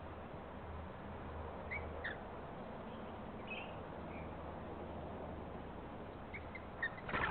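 A few faint, short bird chirps over a steady outdoor background hiss, with a louder rushing noise starting just before the end.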